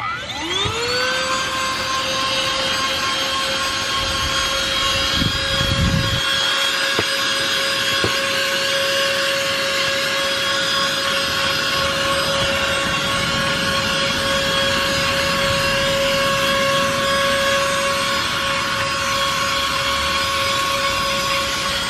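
Vacuum cleaner switching on, its motor spinning up with a quickly rising whine that settles within about a second into a steady high whine, then running continuously with its small brush attachment. There is some low rubbing a few seconds in.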